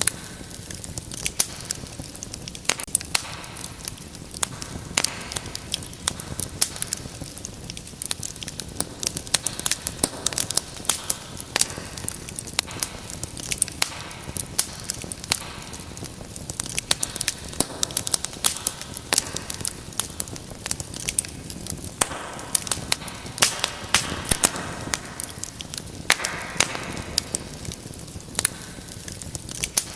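Wood fire burning in a fireplace with many sharp, irregular crackles and pops over a steady low hiss.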